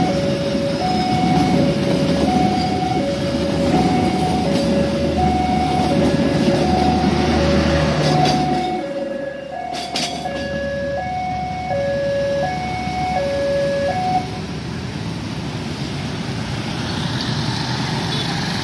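Passenger train passing close by at a level crossing, its heavy rumble dying away about nine seconds in as the last carriage goes by. Over it the crossing's warning alarm repeats a steady two-note high-low signal, stopping about fourteen seconds in. A steady traffic noise is left after that.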